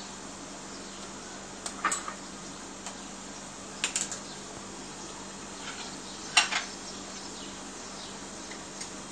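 Metal kitchen utensils and containers clinking in three short clusters about two seconds apart, the loudest about two-thirds of the way through, with a last faint clink near the end. Under them runs a steady faint hiss and a low hum.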